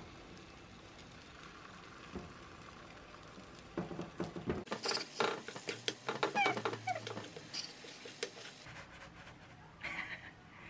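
Wooden chopsticks clicking and scraping against a nonstick wok as eggs are scrambled, with a few short squeaky glides in the middle.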